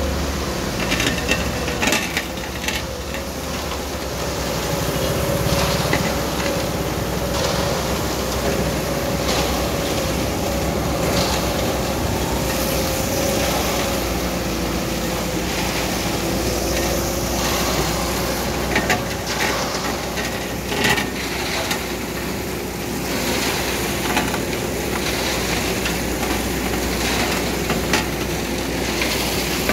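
Self-loading concrete mixer's engine running steadily with a held hum while wet concrete slides down its chute onto the road slab, with scattered scrapes and knocks throughout.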